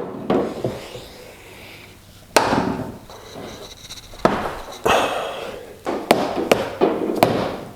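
Irregular sharp knocks and taps of hand tools working on a car's underbody while prying out a jack pad, about nine strikes spread unevenly.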